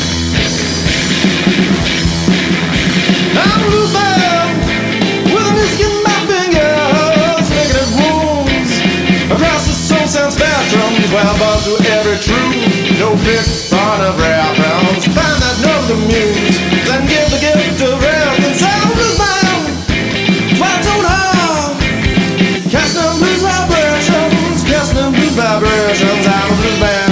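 Rock music with a steady beat and a wavering melodic lead line.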